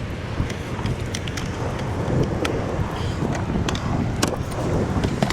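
Wind buffeting the microphone: a steady rushing noise with heavy low rumble, with scattered small clicks through it.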